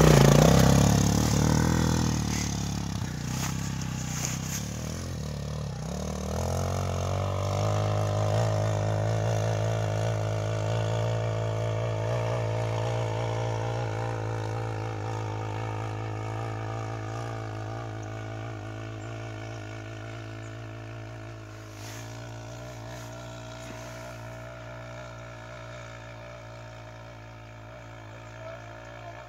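Enduro dirt bike engine revving hard as it pulls away, its pitch stepping up and down through the first few seconds, then running at steady high revs under load up a steep hill, fading gradually as it climbs away.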